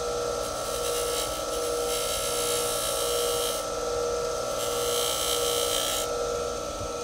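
Baldor 3600 RPM bench buffer running with a steady motor hum and whine. A small steel part of a rifle bolt is pressed against the spinning buffing wheel in three passes, each a hissing scrape of about one to two seconds, to break its edges and take off burrs.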